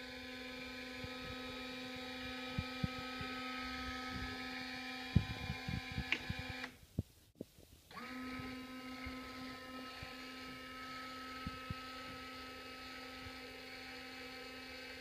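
Small electric motor of an automatic chicken coop door unit running with a steady hum as it winds the door string. It cuts out about six and a half seconds in, after a few clicks, and starts up again a little over a second later.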